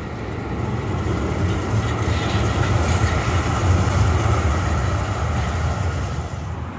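Duewag M8C eight-axle high-floor tram passing on street track, its wheels and running gear rumbling steadily. The sound builds to a peak a few seconds in and then eases as the tram moves away.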